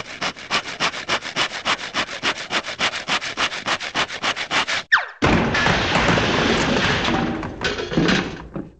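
Cartoon sound effect of a saw cutting through a wooden floor: quick rasping strokes, about six a second. Then a brief falling whistle as the sawer drops through, and a loud crash of tumbling debris that breaks up and dies away near the end.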